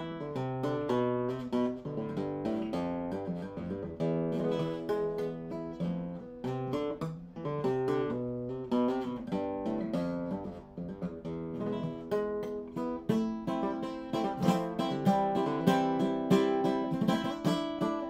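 A 1962 José de la Mora acoustic guitar being played, mixing picked notes with strummed chords, its tone rich in overtones. The playing grows busier and louder in the later part, with quick strums.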